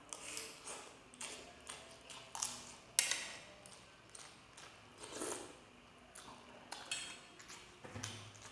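Cutlery clinking and scraping against a plate and bowl while eating, in irregular sharp clicks every half second or so.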